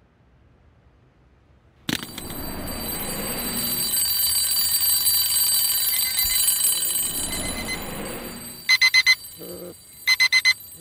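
Mechanical twin-bell alarm clock bursting into a loud metallic ringing about two seconds in, which fades out around eight seconds. A smartphone alarm then beeps in quick groups of four high beeps, alternating with lower beeps.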